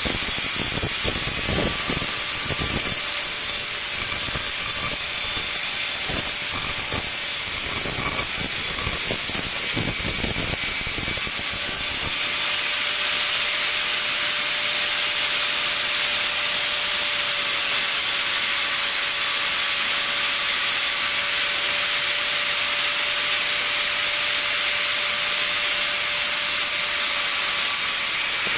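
CNC router spindle running with a steady whine as its bit cuts polystyrene foam. It rasps with irregular low knocks for about the first twelve seconds, then settles into a steadier hiss.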